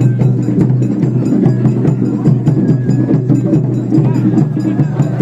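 Japanese shrine-festival music: quick, steady percussive strikes over a continuous low steady tone.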